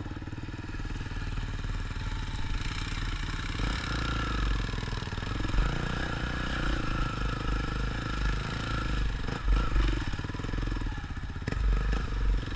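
Quad bike (ATV) engine running under load as it rides over rough, bumpy ground, its pitch rising and falling with the throttle, with a few knocks near the end.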